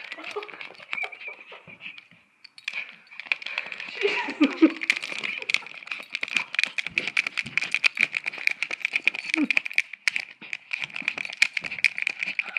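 Yorkshire terrier attacking an iPod touch on a shag carpet: rapid, irregular clicks and scratches of claws and teeth on the device, with a short growl about four to five seconds in and a steady high-pitched whine underneath.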